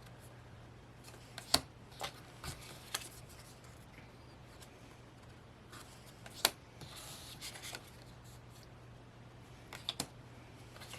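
Photocards being handled and flipped through: scattered sharp clicks and taps, loudest about a second and a half in and again about six and a half seconds in, with light rustling, over a faint steady hum.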